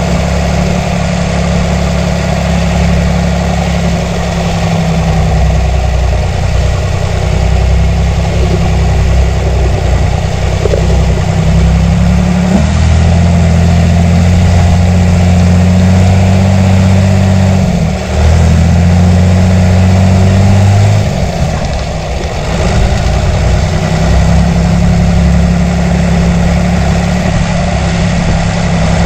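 John Deere 3350 tractor's six-cylinder diesel engine running steadily. The engine note steps up about twelve seconds in, dips briefly around eighteen seconds, and drops back a few seconds later.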